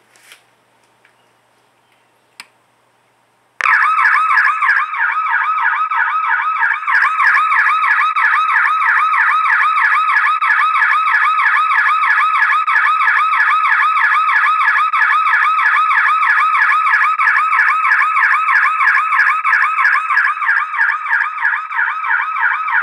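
Police-style electronic siren horn for a motorcycle, run from a 12 V battery, switched on about three and a half seconds in and sounding a fast warbling siren tone that sweeps rapidly up and down, several sweeps a second. It is very loud, reading about 128 dB on a decibel meter.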